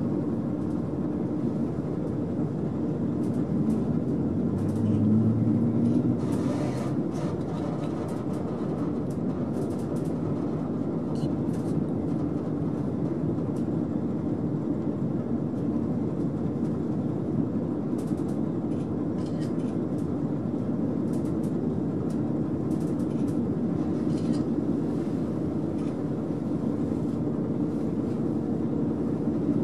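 Running noise inside a KiHa 40 diesel railcar travelling at about 45 km/h: the steady rumble of wheels on rail under the diesel engine's drone. Scattered clicks and rattles run through it, and a brief louder low hum comes about five seconds in.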